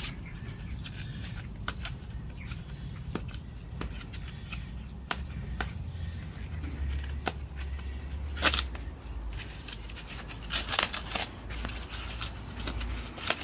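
Plastic packaging being stripped off a new folding electric bike: irregular clicks, snips and crinkling rustles, busiest about eight seconds in and again near the end.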